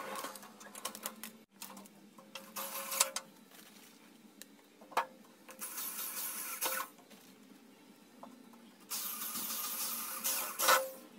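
Cordless drill driving screws into the thin sheet-metal casing of a scrap microwave oven, in two short runs, one about halfway through and a longer one near the end, with clicks and knocks of the metal panel being handled in between.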